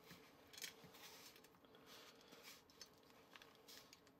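Faint scraping and soft irregular pattering: a small rubber spatula pushes crumbly oatmeal mixture out of a plastic bowl into a small metal baking pan.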